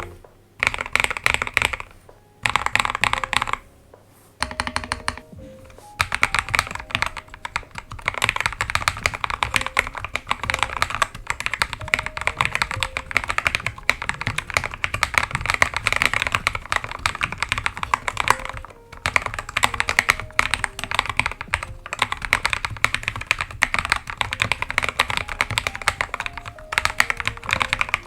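Typing on a Royal Kludge RK61 mechanical keyboard fitted with lubed KTT Rose linear switches and XDA keycaps. A few short bursts of keystrokes give way, about six seconds in, to fast continuous typing.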